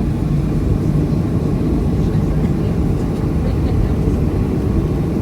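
Steady low rumble inside the cabin of a Boeing 737-300 airliner, from its CFM56 jet engines and airflow, even and unbroken.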